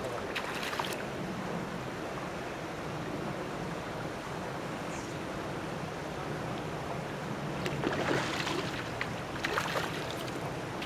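A hooked fish splashing and thrashing at the pond surface while being played on a fly rod, in short bursts about a second in and twice near the end, over a steady rushing background noise.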